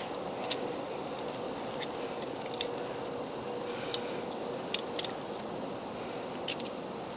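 Scattered light clinks and knocks of camp cooking gear being handled and set out, about seven in all, over a steady background hiss.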